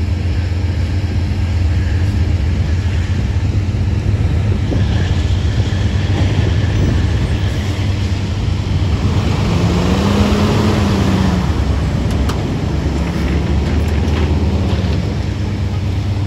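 A diesel locomotive engine runs with a steady low drone. Cars pass close by on the road: their tyre noise swells through the middle, and one car's sound rises and falls in pitch as it goes by, about ten seconds in.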